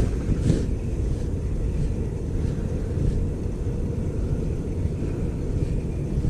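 Wind buffeting the microphone: a steady low rumble throughout.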